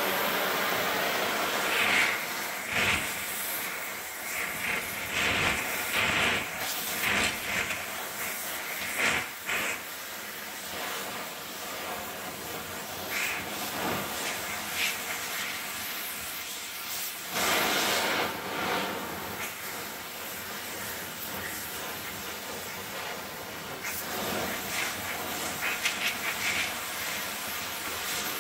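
Gas torch flame hissing steadily as it heats a metal part so it expands enough to slide on. Louder bursts come now and then, the longest about two-thirds of the way through.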